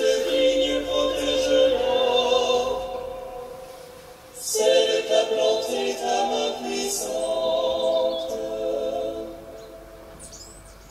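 Choir singing a verse of a French psalm in two long sung phrases, the second fading away near the end.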